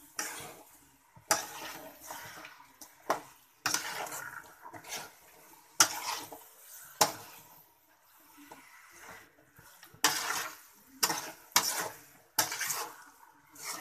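Spatula scraping and knocking against a metal pan as chunks of masala-coated chicken are stirred, in irregular strokes with sharp clacks every second or so.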